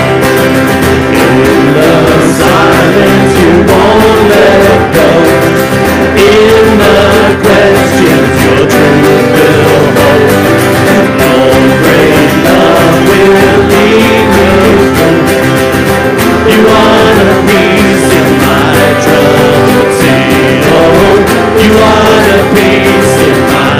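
Live worship band playing a song: strummed acoustic guitars with voices singing the melody.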